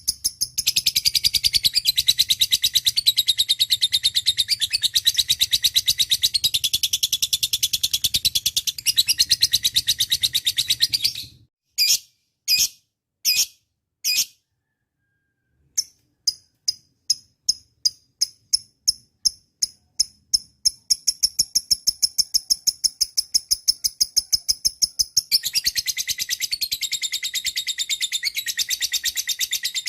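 Lovebird singing in long, rapid, high-pitched chattering trills. About eleven seconds in, the trill breaks into a few separate chirps and a short pause. Then come evenly spaced single chirps, building back into a dense trill near the end.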